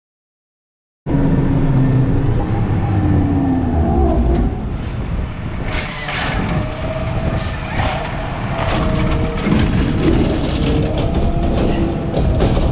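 Starting about a second in, a Peterbilt garbage truck with a McNeilus ZR automated side-loader body runs loudly: a diesel engine rumble and a wavering hydraulic whine as it creeps along the curb. High-pitched metal squeals and clanks come from the truck and its arm.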